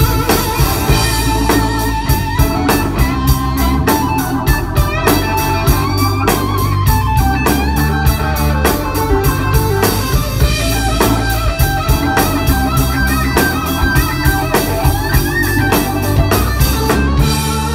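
Live blues-rock band playing an instrumental passage: Hammond-style organ over electric guitars and a steady drum beat.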